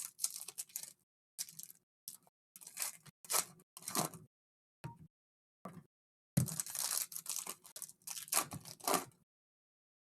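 Packaging being torn open on a sealed box of trading cards: irregular rips and crinkles in short spurts, with a longer, louder stretch of tearing past the middle.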